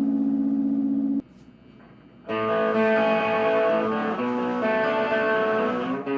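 Gibson Les Paul Special electric guitar through a Marshall Master Lead 30 amp: a held chord rings and is cut off about a second in. After a short silence a new chord is struck and rings, then the notes change several times.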